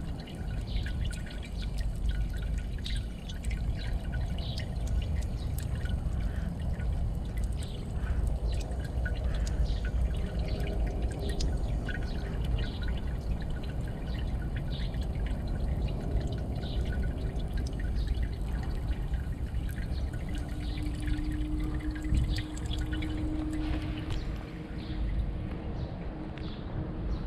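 A thin stream of water falling from an outdoor tap and splattering onto stone, a steady trickle with many small irregular drips and splashes.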